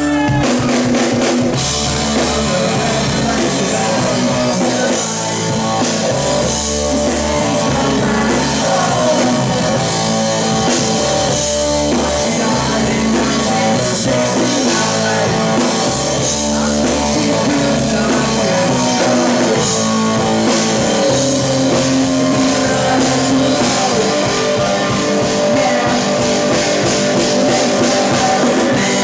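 Live rock band playing loudly: electric guitars and a drum kit, with a male singer singing into a microphone. The full band comes in at the start.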